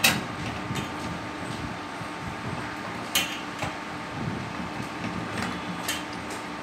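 Clicks and light knocks of hands working parts inside an open electrical machine cabinet to get at a fuse, the sharpest right at the start and another about three seconds in, over a steady faint hum.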